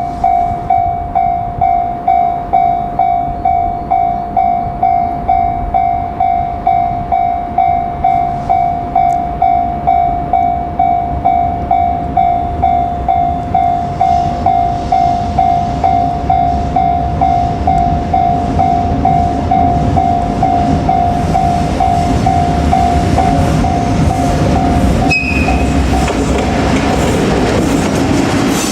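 Japanese railway level-crossing warning bell ringing in steady strikes, a bit under two a second, while a freight train comes up and passes with rising wheel and rail noise and clickety-clack. About 25 s in the bell stops, with a brief high beep, and the train noise carries on.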